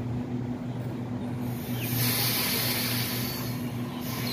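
Sydney suburban electric train standing at the platform with a steady electrical hum, joined about a second and a half in by a loud hiss of air.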